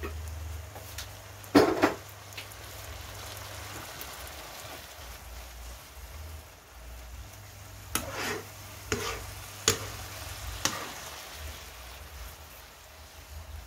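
Spinach and garlic sizzling gently in a nonstick frying pan as their water cooks off, while a metal spoon stirs them, scraping and knocking against the pan. The loudest knock comes near the start, and a few more come in a cluster about two-thirds of the way through.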